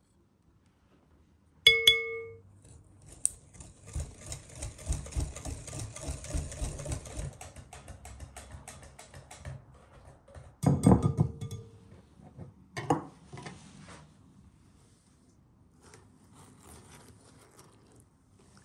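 A ringing clink, then a wire whisk beating a cocoa mixture in a bowl: rapid scraping strokes for about six seconds. Two loud knocks of the utensil against the bowl follow, then quieter handling.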